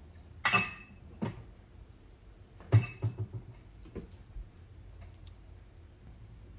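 A few sharp knocks and clinks of kitchen items being handled and set down. The loudest comes about three seconds in, followed by a quick run of lighter taps.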